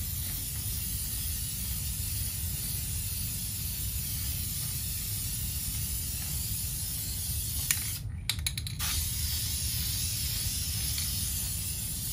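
Aerosol spray-paint can hissing steadily as a first light coat of black high-heat paint goes on. About eight seconds in, the spray stops briefly with a few clicks, then resumes.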